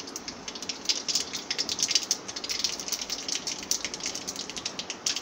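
Mustard seeds and a broken dried red chilli sizzling in hot oil in a kadai, the seeds spluttering in quick, irregular crackles: the tempering (phoron) frying.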